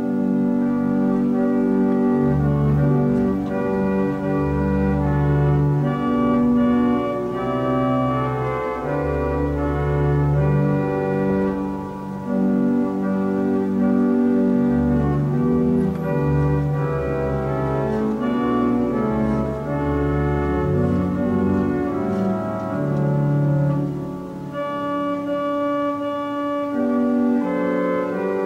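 An organ playing a slow piece of wedding music in held chords over deep bass notes. It starts abruptly.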